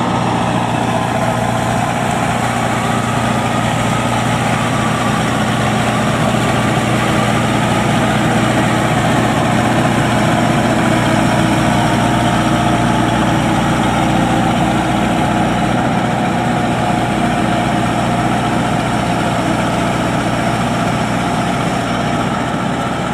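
Engine of a homemade Vietnamese combine harvester running steadily at a constant speed, loud and close.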